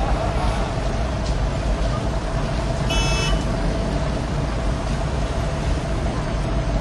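Steady city street traffic rumble rising from below. A brief high-pitched toot sounds about three seconds in.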